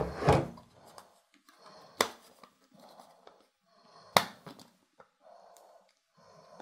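Hard plastic packaging handled: a clear plastic dome and its green plastic base are lifted out of a box and turned in the hands. There are a few sharp clicks and knocks, about two seconds in and loudest about four seconds in, with quieter rubbing and rustling between them.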